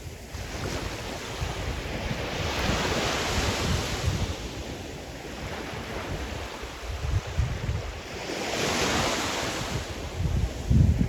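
Sea surf: waves breaking and washing in, two swells of hiss a few seconds apart, with low gusty rumble of wind on the microphone, strongest near the end.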